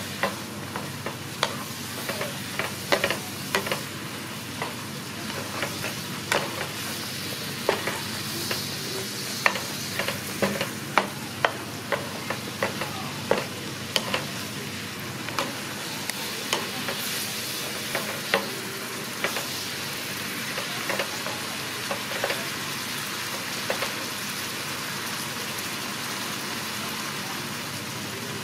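Pork and diced vegetables sizzling in a nonstick frying pan while a wooden spatula stirs them, with frequent sharp knocks and scrapes of the spatula against the pan that grow fewer after about twenty seconds.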